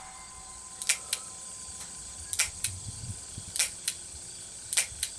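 Smith & Wesson Model 53 revolver's action clicking four times, a pair of sharp metallic clicks each time, as the hammer comes back and falls without a shot. These are .22 LR rounds in reproduction chamber inserts misfiring; the owner puts it down to the inserts being slightly off-centre, so the firing pin only catches the edge of the rim.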